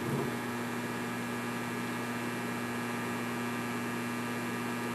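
Steady mains hum, strongest around 120 and 240 Hz with fainter overtones above, over a soft even hiss, from the Alpha 9500 HF linear amplifier's power supply and cooling blower while it transmits at about 1,500 watts.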